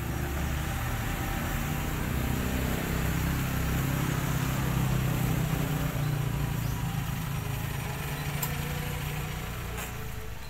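Motor vehicle engine running at low revs, growing louder toward the middle and easing off near the end.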